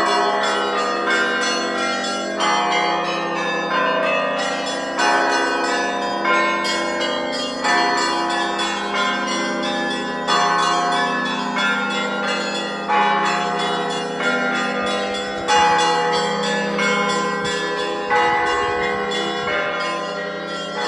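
Russian Orthodox monastery bells being rung: several bells of different pitches sound together and ring on over each other. A heavier stroke falls about every second and a quarter, with lighter bells struck in between.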